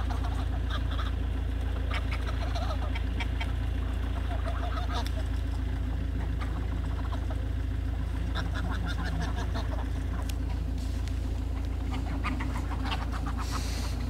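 A flock of greylag geese giving short, scattered calls as they feed, over a steady low rumble.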